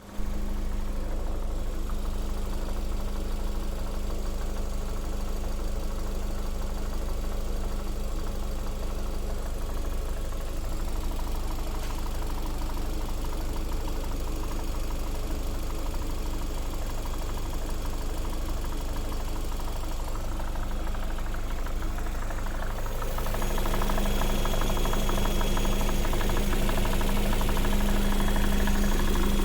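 Lada Vesta SW Cross's 1.8-litre four-cylinder petrol engine running steadily at idle with a rapid, regular knock from the engine. The sound grows louder and brighter about two-thirds of the way in.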